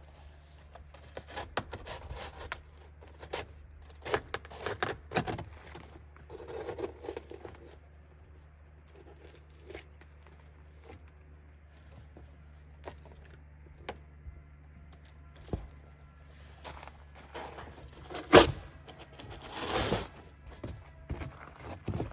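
Cardboard shipping box being cut and torn open by hand: irregular tearing, scraping and crinkling, with a sharp knock about 18 seconds in.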